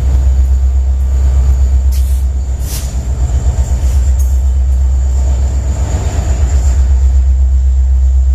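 Loaded BNSF coal train rolling past: a steady, loud low rumble of cars on the rails, with a thin high squeal from the wheels and a couple of brief clanks.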